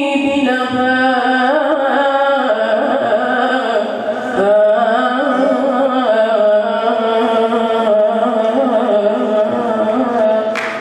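A young boy singing an Arabic nasheed solo into a microphone, with long held, wavering notes.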